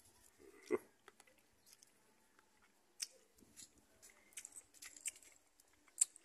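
A person chewing freshly picked ripe grapes, with scattered faint wet crunches and mouth clicks; the loudest comes about a second in.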